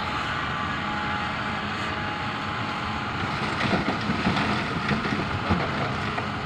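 Hitachi 310 excavator's diesel engine running steadily under load, with irregular knocks and clatter from about three and a half seconds in as it tips a bucket of rock into a dump truck's bed.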